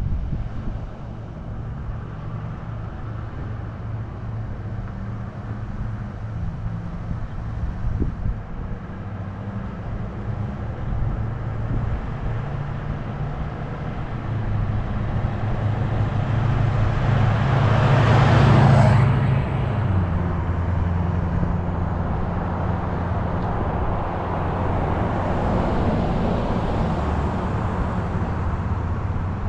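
Car on the road: steady engine hum and road noise, the hum dropping in pitch about two-thirds through. A louder rush of noise swells and fades about eighteen seconds in, with a weaker one near the end.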